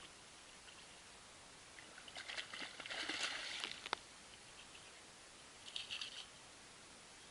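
A hooked fish thrashing and splashing at the water's surface as it is scooped into a landing net, ending in a sharp click, then a shorter splash of water as the net is lifted out.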